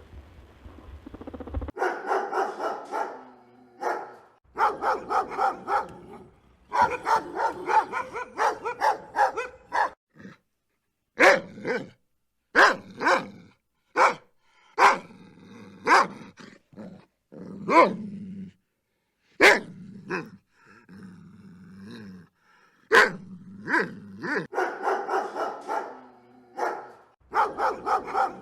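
Dogs barking: runs of quick, rapid barks, and in the middle stretch single sharp barks about a second apart.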